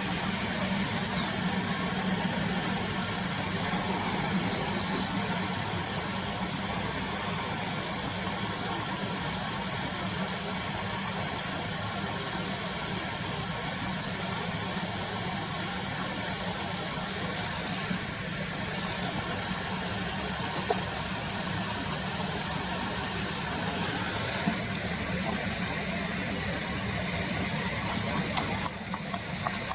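Car engine idling with a steady low hum under a constant hiss.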